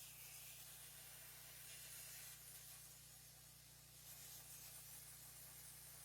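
Near silence: a faint steady hiss with a low electrical hum underneath.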